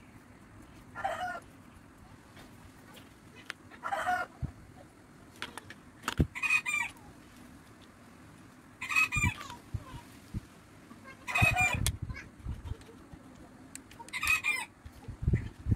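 A bird repeating a short call about every two to three seconds, six times, over a few soft low knocks from copper tubing and sprayer fittings being handled.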